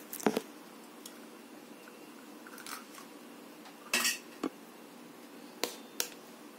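Eggs being cracked against the rim of a stainless-steel bowl and broken open: a few sharp taps and crackles of shell, the loudest just after the start and about four seconds in.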